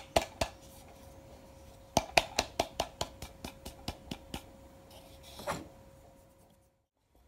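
Quick, sharp wooden taps, about four a second in two runs, as ground coffee is knocked into the small wooden drawer of a manual box coffee grinder. One softer scrape follows near the end.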